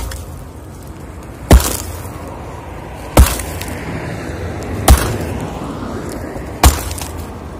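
Sledgehammer striking a rebar-reinforced concrete slab: four heavy blows evenly spaced about every second and three-quarters, the concrete cracking and breaking apart under them.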